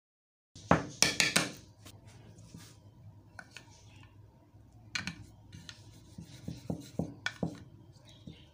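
A spoon, then a toothbrush, scraping and tapping against a small dish while stirring a wet white paste. It starts with a quick run of loud clicks about a second in, then goes on as quieter scraping with a few sharp taps around five and seven seconds.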